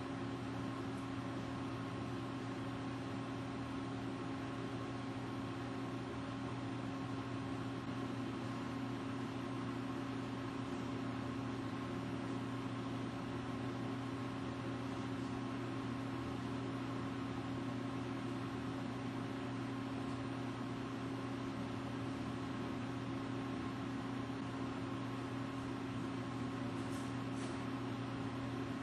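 Steady machine hum: a constant low drone with a higher tone above it, over an even hiss.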